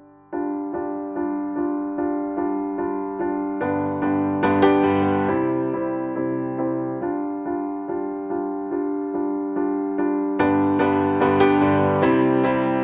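Background music: a piano or electric piano playing a repeated pattern of notes, about two a second, with fuller chords coming in about four seconds in and again near the end.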